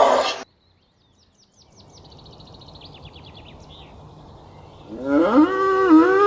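Animal calls edited back to back: a loud rough call cuts off just after the start, then faint quick bird chirps over a low hiss, then a long pitched animal call that rises and holds, starting about five seconds in.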